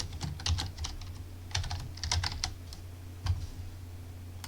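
Typing on a computer keyboard: two short bursts of keystrokes, then a single key press about three seconds in, over a steady low hum.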